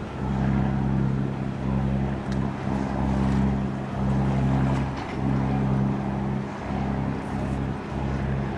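A boat's engine running steadily: a low drone that dips briefly at a regular rhythm, about every second and a half.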